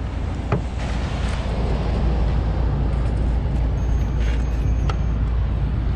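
Wind buffeting the microphone: a steady low rumble. Two small metal clicks, about half a second and five seconds in, come from spring-gate carabiners being clipped onto a welded steel radio cage.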